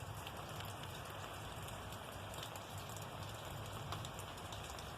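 Steady rain falling during a thunderstorm, an even hiss with a few scattered drop ticks, over a low steady hum.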